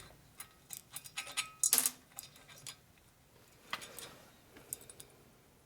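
Small metal parts clicking and clinking as they are handled on a bench: scattered light taps, with one louder ringing clink a little under two seconds in and another near four seconds.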